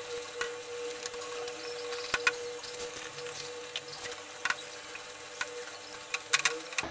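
Spatula stirring and scraping a thick milk-powder paste in a frying pan, with scattered light clicks of the spatula against the pan, over a steady faint hum.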